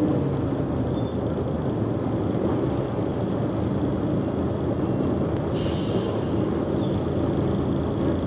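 Mercedes-Benz O345G articulated bus's diesel engine idling steadily with the bus standing still. A short hiss comes about five and a half seconds in.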